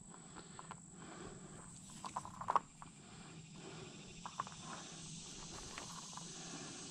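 Quiet handling noise as a cloth measuring tape is pulled out across an inflatable paddleboard: a few light clicks and taps, the loudest about two and a half seconds in, over a faint steady hiss.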